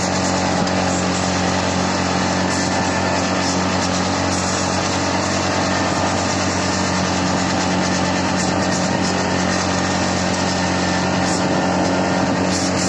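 CFMoto 520L ATV's single-cylinder engine running at a steady speed while driving, its pitch holding constant throughout.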